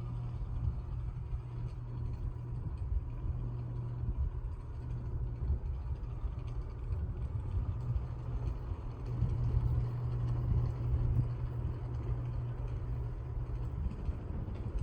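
Litex Ellington 52-inch ceiling fan (model D573CT) running, its motor giving a steady low hum over an uneven low rush of moving air.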